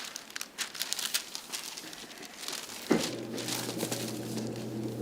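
Crinkling and rustling as something is set in place on a chiropractic treatment table. About three seconds in, a steady low electric hum starts abruptly.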